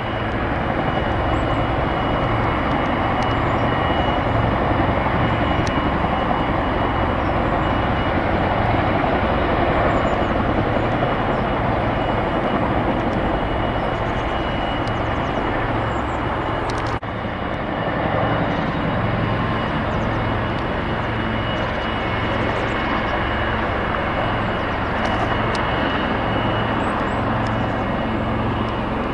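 Boeing CH-47 Chinook HC6 tandem-rotor helicopter taking off and flying low, its two rotors beating heavily over the running twin turbines, with a steady high whine throughout. About two thirds of the way through there is a sudden brief break, an edit in the recording.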